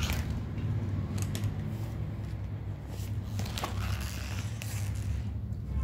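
Pages of a spiral-bound paper book being turned and smoothed by hand: a few short paper rustles over a steady low hum.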